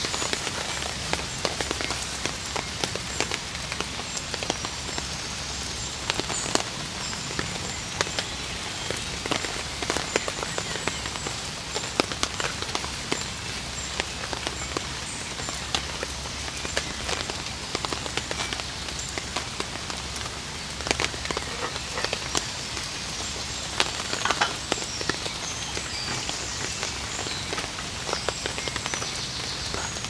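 Food sizzling and crackling in an oiled frying pan, a steady dense crackle of fine pops.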